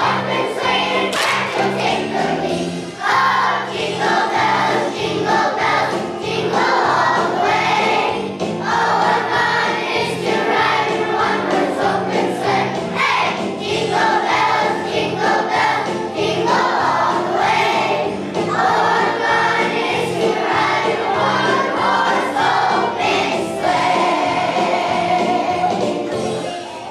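Children's choir singing a Christmas song over an instrumental accompaniment with a steady beat; the song winds down near the end.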